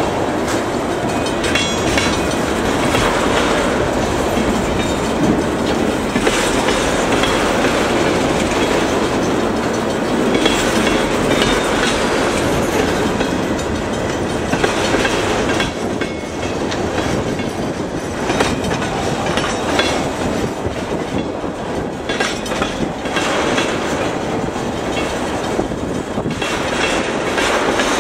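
Freight cars, mostly tank cars, rolling past at speed: steel wheels rumble steadily on the rails, with repeated clacks as wheel sets cross the rail joints.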